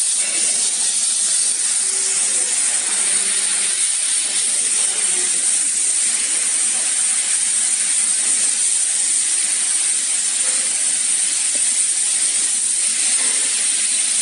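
Steady high-pitched hiss with no distinct events.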